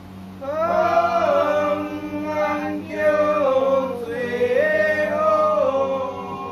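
Temple ritual chant: voices singing a slow, wavering melodic chant in long phrases, with short breaks about three and four seconds in. A steady low hum runs underneath.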